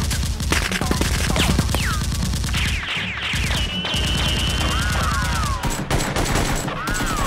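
Rapid automatic gunfire sound effects dubbed over a toy-blaster fight, the shots running close together throughout. Short falling whistles come in about two seconds in, and wavering electronic tones sound twice in the second half.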